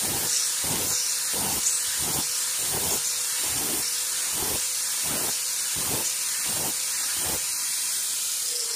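Grinder with a flap disc running with a steady whine and hiss, grinding the steel head of a small ball peen hammer to take out pits. The grinding swells in a regular rhythm about twice a second. The strokes stop shortly before the end, and the motor's whine begins to fall as it spins down.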